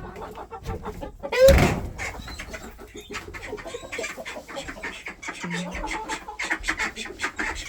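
Hens clucking, with a loud call about one and a half seconds in, amid a run of short clicks.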